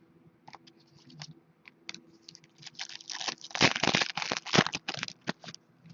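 Hockey trading-card packs being handled and torn open: a run of crinkling, tearing rustles of wrapper and card stock, sparse at first and thickest from about halfway through.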